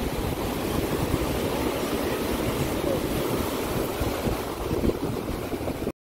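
Beach ambience: steady surf noise with wind buffeting the microphone. It cuts off suddenly to silence just before the end.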